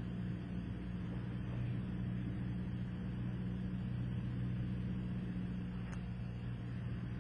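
Cessna 172SP Skyhawk's four-cylinder Lycoming IO-360 engine and propeller droning steadily, heard inside the cockpit on the approach to land.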